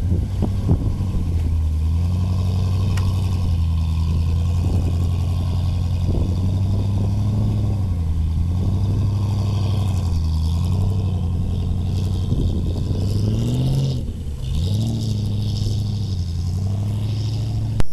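Land Rover engine working off-road, its note rising and falling as the throttle is opened and eased. Near the end it drops briefly, then revs up again.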